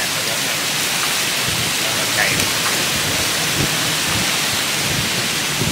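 Steady rain hiss, even and unbroken.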